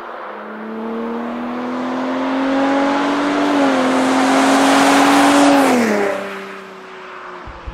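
Gen 3 Ford Raptor's 3.5-litre twin-turbo EcoBoost V6, through its active-valve exhaust, accelerating past. Its note rises steadily with a brief dip about three and a half seconds in, is loudest about five and a half seconds in, then drops in pitch and fades as the truck goes by.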